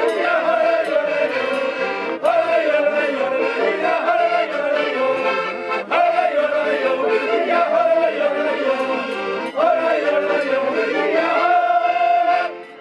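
A mixed group of men and women singing a folk song together, accompanied by two button accordions, in phrases that restart every few seconds. The song ends on a long held note that stops shortly before the end.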